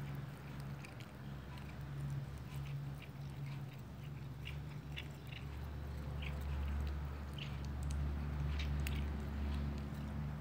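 A domestic cat chewing and tearing blades of potted cat grass: irregular short, crisp crunches, thickest in the second half. A steady low hum runs underneath.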